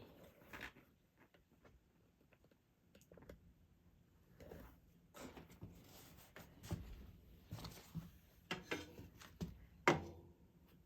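Faint handling sounds of canvas and a wooden frame being positioned on a table: scattered light taps, rustles and scrapes, busier in the second half, with one sharper knock shortly before the end.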